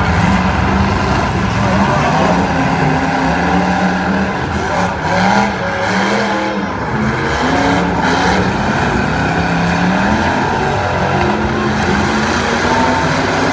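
Several demolition derby cars' engines revving hard and unevenly, rising and falling together as the cars drive at and ram each other, with a few sharp knocks about halfway through.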